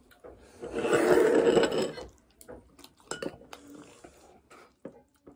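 Eating at a table: a loud noisy burst lasting about a second and a half near the start, then light clicks and clinks of a metal spoon against a ceramic bowl.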